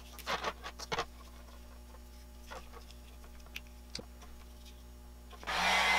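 Light clicks and ticks of copper wire and heat-shrink tubing being handled, then about five and a half seconds in a heat gun switches on and runs with a steady blowing and hum, to shrink the tubing.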